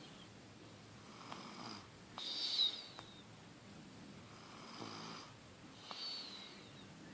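Snoring in slow, regular breaths, with a high whistling note on two of them, about two and six seconds in.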